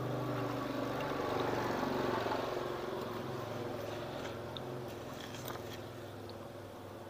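A passing motor vehicle's engine grows louder to a peak about two seconds in, then slowly fades away, with a few light metallic clicks of engine parts being handled.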